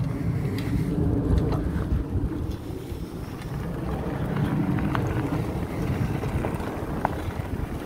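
Electric fatbike with a 48 V 1000 W conversion kit riding off along a gravel path: wind rumbles on the microphone over the crunch of the fat knobby tyres on gravel, with a few faint clicks.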